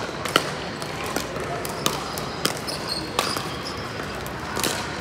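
Pickleball paddles hitting a hard plastic ball in a fast volley rally: about eight sharp pops at irregular spacing, roughly one every half second to second, ringing a little in a large hall.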